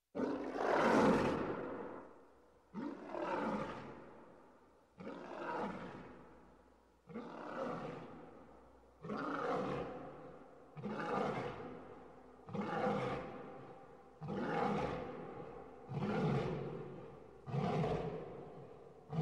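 Lion roaring over and over, about ten roars every two seconds or so, each starting suddenly and fading away.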